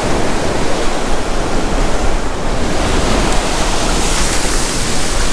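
Surf washing up the beach in a steady rush of breaking waves and foam, with wind rumbling on the microphone.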